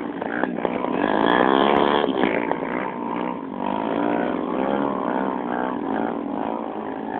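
Small single-cylinder trail motorcycle engine revving hard, its pitch rising and falling, as it labours through deep mud and water. The loudest surge comes about a second in.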